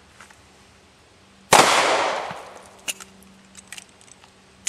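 A single pistol shot about a second and a half in, ringing out and fading over about a second. It is followed by several faint clicks and one sharp click near the end as the pistol is reloaded between shots.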